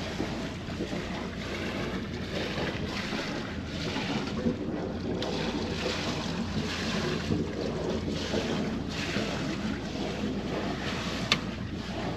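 Motor yacht running on the water: a steady low engine rumble under water washing along the hull and wind buffeting the microphone, with a single sharp click about eleven seconds in.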